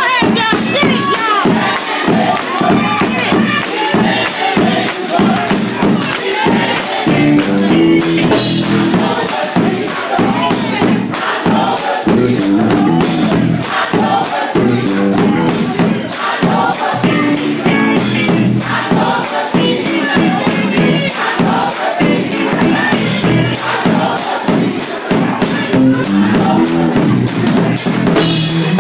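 Live gospel music: voices singing over a steady beat with a shaking tambourine.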